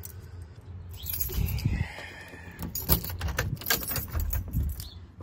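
A bunch of keys jangling at a metal door, with a run of sharp clicks and knocks, and a short squeak about two seconds in.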